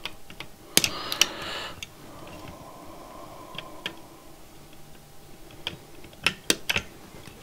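Sharp clicks and taps of small pliers handling component leads on a circuit board, a quick cluster about a second in with a brief rustle, and another cluster near the end.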